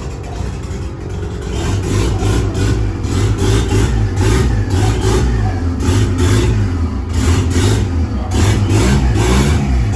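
Turbocharged Chevrolet Corsa pickup engine running loud at low speed, its revs rising and falling. It gets louder about a second and a half in.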